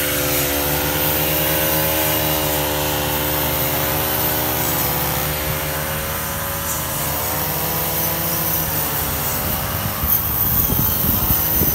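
Several petrol brush cutters (grass trimmers) running together at high speed, their overlapping engine notes wavering slightly up and down. A few sharp ticks come in near the end.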